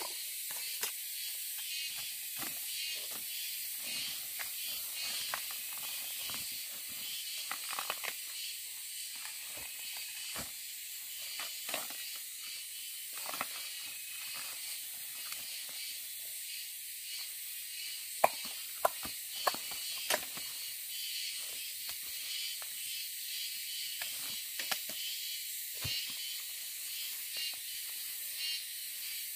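A steady high-pitched hiss with a fast pulsing texture, with many short clicks and snaps scattered through it; a few louder sharp clicks come about two-thirds of the way in.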